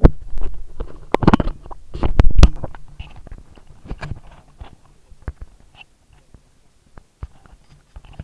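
Muffled water and handling sounds picked up by an SJCAM M10 action camera's microphone inside its sealed waterproof housing as it is dunked into a bucket of water: a loud plunge and sloshing in the first two or three seconds, then fainter knocks and clicks. This is the dull, muffled sound the camera records when in the housing underwater.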